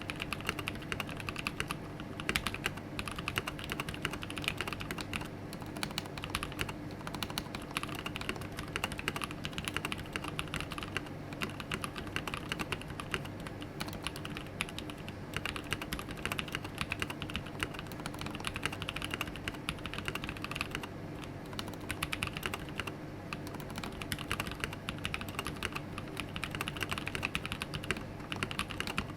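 Continuous fast typing on a Mark: 65 custom mechanical keyboard with lubed NovelKeys Cream linear switches, an aluminium plate and PBT keycaps: a dense, unbroken stream of key clacks.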